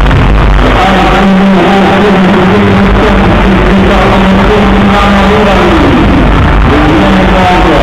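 Loud arena show music over the PA, a held low note with shifting tones above it, heavily distorted by an overloaded recording.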